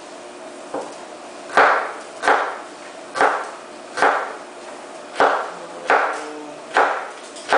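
Kitchen knife chopping a small red onion on a wooden cutting board: about eight sharp knocks of the blade on the board at a slow, even pace, roughly one every 0.8 seconds.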